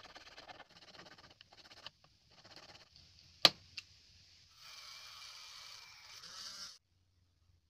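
Short rasping strokes of a file and sandpaper on a small PVC piece, then a sharp click. A mini drill then whirs for about two seconds as it bores into the tiny plastic part, cutting off suddenly.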